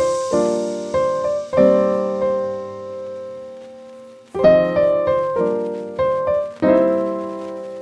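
Background piano music: slow chords struck every second or so, each left to ring and fade, with a longer fading chord in the middle.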